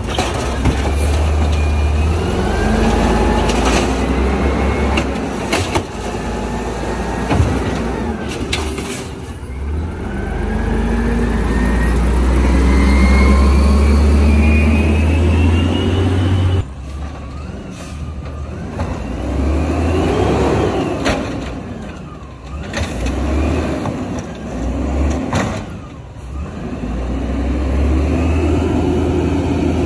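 Automated side-loader garbage truck: its engine runs up under load with repeated rising whines as the arm works, then cuts back suddenly about halfway through. The truck then pulls away, its engine note rising and dropping twice.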